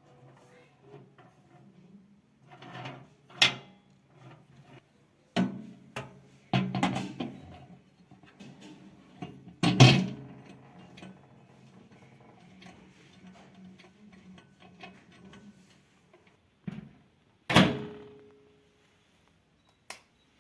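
Knocks and clinks of a microwave oven being handled, about half a dozen separate sharp ones with the loudest about halfway through, over a low steady hum. One knock near the end leaves a brief ringing tone.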